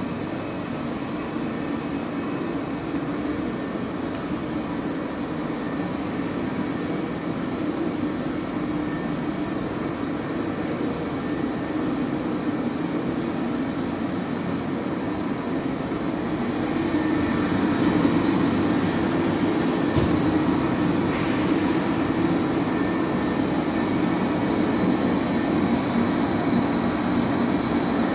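Steady mechanical drone of a mesh-belt IQF quick freezer's refrigeration machinery running. It gets louder a little past halfway, with a single sharp click shortly after.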